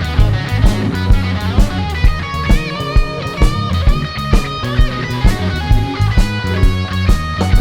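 Live blues-rock band in an instrumental break: electric guitar plays lead lines with bent notes over bass and a steady drum beat.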